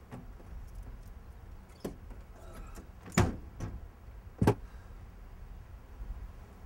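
Car door and handling clunks: five sharp knocks over a low steady rumble, the two loudest about a second and a quarter apart near the middle.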